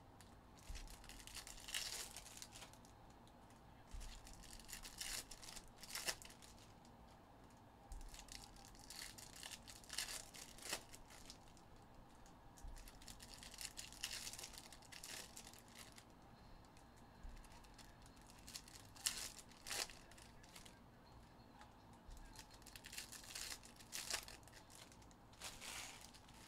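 2022 Topps Chrome Jumbo trading-card pack wrappers being torn open and crinkled by hand, faintly, in bursts of tearing and rustling that come about every four seconds.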